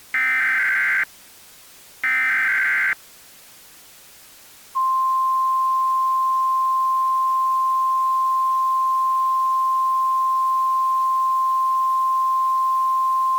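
Emergency Alert System header data: two short bursts, each about a second long and a second apart. A pause follows, then a single steady tone, the attention signal that comes before the spoken tornado warning.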